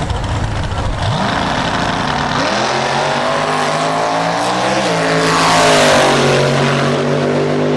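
Drag-racing pickup truck's engine launching off the line: a rough rumble, then rising in pitch as it accelerates, dropping briefly near five seconds as it shifts gear, then pulling hard at full throttle.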